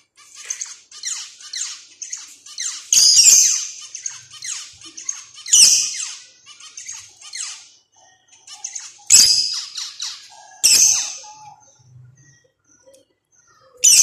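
Zebra finch calling: a quick run of short, high, downward-sweeping chirps, with several louder calls standing out every two to three seconds.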